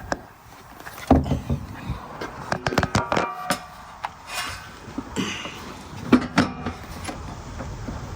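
Irregular clicks, knocks and rattles from hands working at the truck's battery box and its fuse holders, with a louder pair of knocks about six seconds in.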